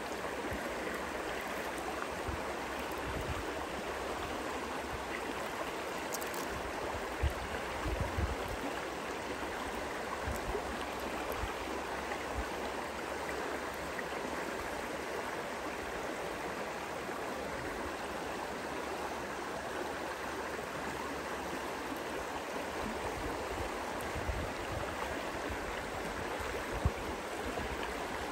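A shallow stream running steadily over rocks, with a few soft knocks about a quarter of the way in and again near the end.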